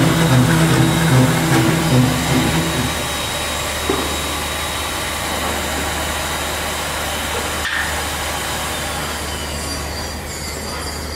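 Loud, steady mechanical noise. For the first three seconds a low two-tone sound pulses over it, then stops.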